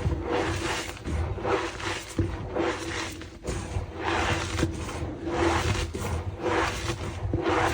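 Reformed gym chalk blocks being squeezed and crumbled by hand. The crunchy, squeaky crushes come one after another, roughly one or two a second.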